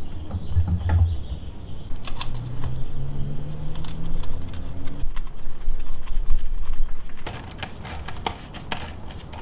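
Handling knocks and scraping as an electric pool pump motor is pushed onto the pump's plastic housing. Then, from about seven seconds in, a socket ratchet clicks in quick runs as the housing bolts are tightened.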